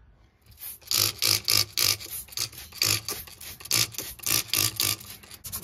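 Quick, repeated back-and-forth rubbing strokes, two or three a second, starting about half a second in: scrubbing or sanding by hand while cleaning a truck's engine bay.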